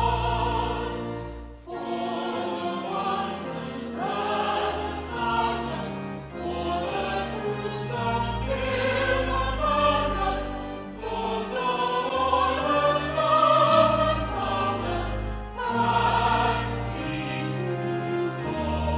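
Choir singing with instrumental accompaniment, sustained low bass notes held beneath the voices.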